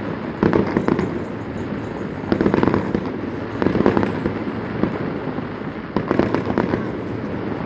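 Aerial fireworks bursting in quick succession, with continuous crackling. Heavier volleys of bangs stand out every second or two, four times.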